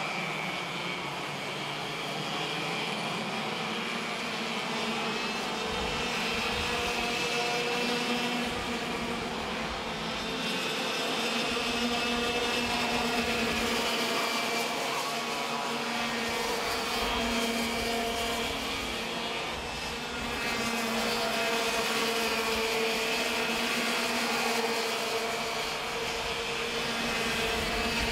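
Racing kart engines running at high revs on the track, a continuous buzz whose pitch rises and falls as the karts accelerate and slow through the corners.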